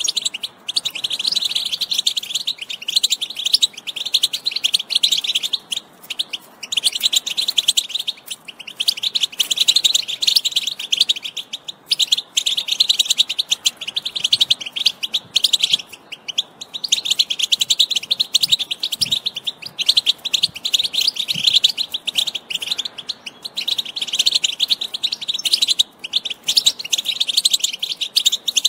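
European goldfinch singing: long runs of fast, high twittering, broken by brief pauses every few seconds.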